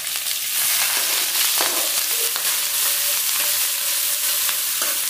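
Chopped onions sizzling in hot oil with cumin in a nonstick kadhai, a steady frying hiss. A metal ladle stirs them, with a few short scrapes and taps against the pan.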